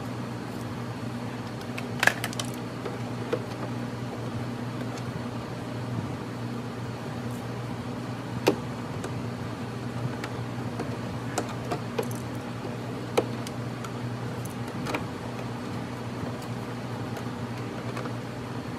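Scattered sharp clicks and taps of plastic trim clips and a screw being fitted by hand into a C5 Corvette's fender liner, over a steady low hum.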